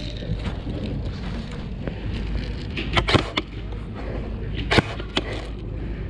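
Airsoft guns firing a few single shots: a quick cluster of three sharp snaps about halfway through, then two more a little later, over a steady low rumble of movement and wind on the microphone.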